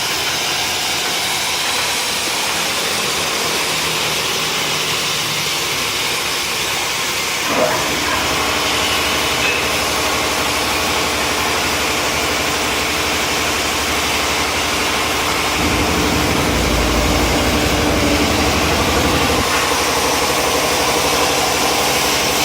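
CNC plasma cutting machine running: a steady hiss of air and arc, with a click about a third of the way in after which a steady hum and low rumble join, the rumble swelling for a few seconds past the middle.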